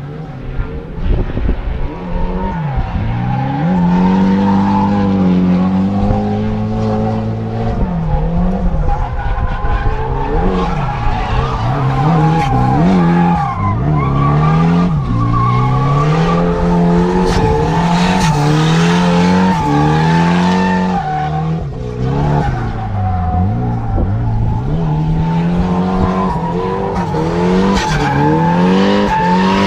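Drift car engine revving hard, its pitch climbing and dropping again and again as the throttle is worked, with the rear tyres squealing as they slide.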